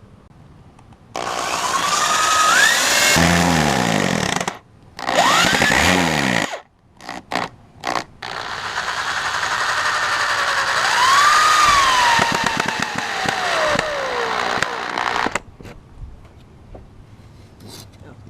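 Power saw cutting wood in several runs that start and stop abruptly, its motor pitch rising and falling as it works through the boards.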